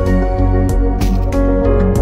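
Background music: held instrumental tones over a regular percussive beat.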